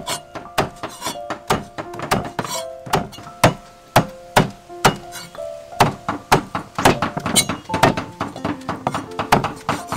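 A steel cleaver chopping boiled beef tripe on a wooden chopping block: a quick, uneven run of knocks, about three a second. Background music plays underneath.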